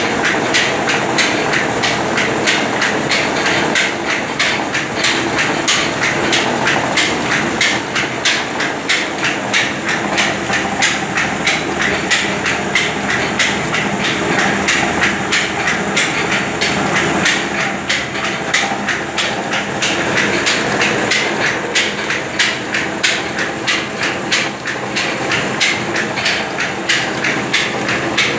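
Mewar belt-driven flour mill (chakki) running while grinding wheat, a steady mechanical noise with a rapid, regular clatter.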